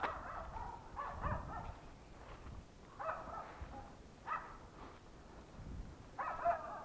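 Hunting laika dog barking faintly, a handful of separate barks at irregular intervals.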